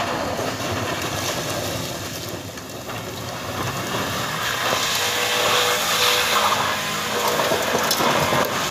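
A vehicle passing on a rough, broken road: engine noise under a dense rushing noise that grows louder through the second half.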